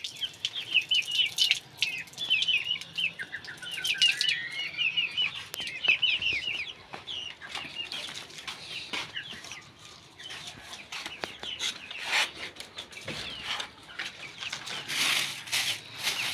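Young chickens peeping in rapid, high, short chirps through the first half. Later come scattered clicks, and near the end a plastic bag of feed rustles as it is handled.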